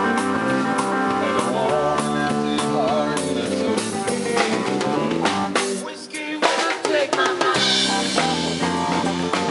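Live country-rock band playing an instrumental passage: electric guitar lead with wavering bent notes over electric bass and a drum kit. About six seconds in the band drops back briefly for a few sharp drum hits, then carries on.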